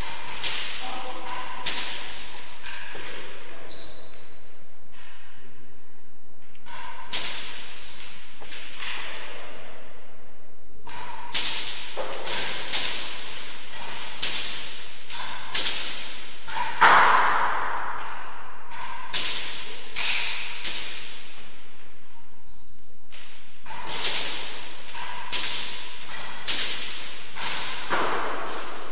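A rally with a hard ball on a walled court: a quick, irregular series of sharp cracks as rackets strike the ball and it rebounds off the walls and floor, each crack ringing briefly in the hall. The loudest crack comes about 17 seconds in.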